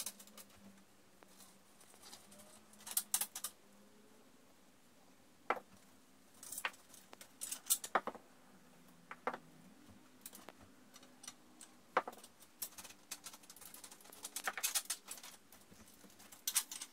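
Scattered clicks, taps and short light rattles of a metal telescope tripod and mount being handled and unfastened, with quiet stretches between them.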